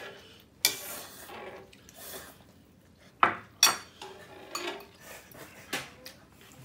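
Metal tongs clinking and scraping against a metal griddle pan while stirring and lifting instant noodles in broth, with a few sharp clinks, the loudest about half a second in, two close together a little past the middle, and one near the end.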